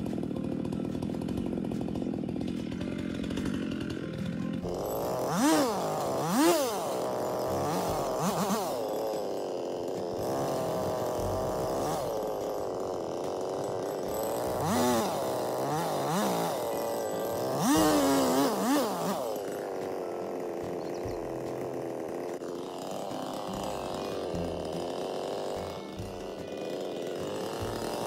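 Gas chainsaw idling, then running at higher speed and revved in several short bursts, the engine pitch rising and falling with each one.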